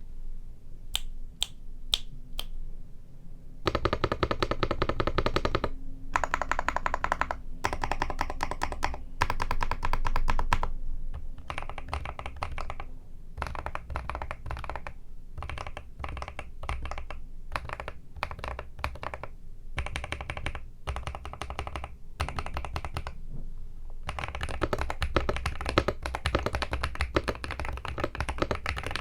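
Typing on a Zuoya GMK67 mechanical keyboard with lubed Akko V3 Cream Blue tactile switches, GMK Arctic double-shot PBT keycaps and a three-layer tape mod. A few single keystrokes come first, then fast runs of typing in bursts with short pauses.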